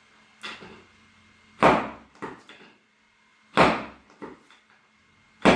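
Thuds of chiropractic adjustments on the body: a softer knock, then three loud sharp ones about two seconds apart, each followed by a lighter knock.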